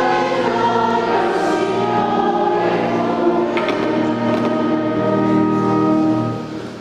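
A choir singing a sacred hymn in long held notes. The last chord is held and dies away near the end.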